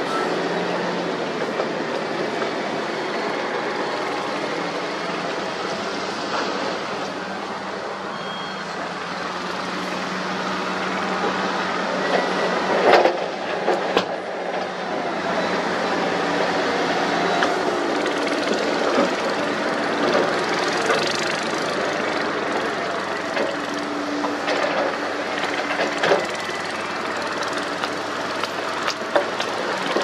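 Diesel engines of wheel loaders and a dump truck running under load, with a few clattering knocks where rock and soil drop into the truck's steel bed.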